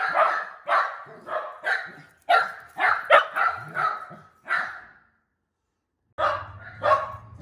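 Shetland sheepdog barking over and over in quick sharp barks, about two to three a second. The barks stop about five seconds in, and after a break of about a second come two more.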